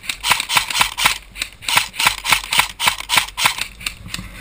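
Airsoft rifle firing a rapid string of shots, about five or six sharp clacks a second, stopping about three and a half seconds in.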